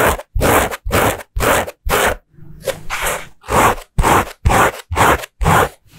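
12.5 oz raw short-slub selvedge denim, indigo warp with black weft, being scratched: about a dozen quick scratch strokes at roughly two a second, with a short pause a little past two seconds in. The scratch has a crisp, classic raw-denim tone, without the jaggedy, sandy sound of slub denim.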